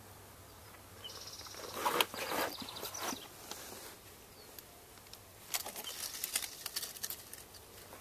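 Handling noise as a hand and camera brush and scrape against granite rocks while reaching for a snake: two bursts of rustling and clicks, about two seconds in and again about six seconds in, over faint outdoor hiss.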